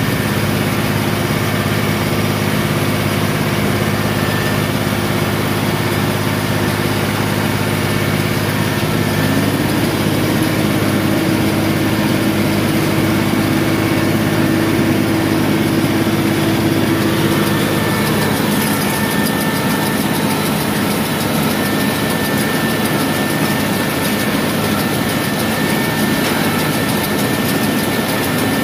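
Tractor engine running steadily under load while pulling a Hesston 745 round baler, the baler's pickup and PTO driveline turning as it takes up hay from the windrow. A little past halfway the steady engine hum drops back and the baler's own mechanical noise becomes the main sound.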